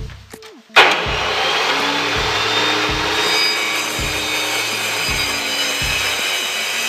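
Circular saw blade under a homemade saw table cutting a laminated chipboard panel as it is pushed across the table. The sound comes in abruptly about a second in, then runs steadily with a high whine.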